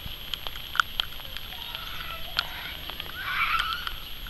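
Outdoor ambience in light rain: a steady high hiss with scattered sharp drop-like ticks, and a few faint bird calls about three seconds in.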